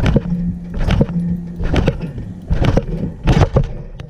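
Thumps of a trampoline mat as someone bounces on it, roughly one a second, some in quick pairs, over a low rumble. A steady low hum runs under the first two seconds.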